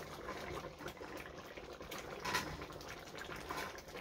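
Thick rice soup simmering and bubbling in a pot as it is stirred with a wooden spoon.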